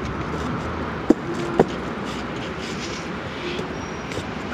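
Steady street noise of road traffic, with two short sharp clicks about a second and a second and a half in.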